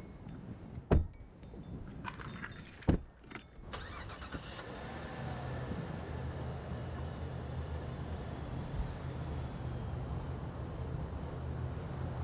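Two car doors of a Cadillac CTS sedan slamming shut about two seconds apart, with a jingle of keys between them and after. About five seconds in the engine starts and settles into a steady idle.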